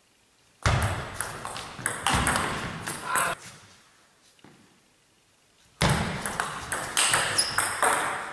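Table tennis ball clicking back and forth in fast rallies, racket hits and table bounces echoing in a large sports hall. There are two rallies, one starting about half a second in and one about six seconds in, each lasting two to three seconds, with a quiet gap between.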